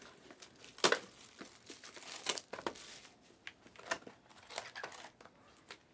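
Plastic trading-card packaging crinkling and tearing as a pack is opened by hand, in a run of irregular crackles with one sharp snap about a second in.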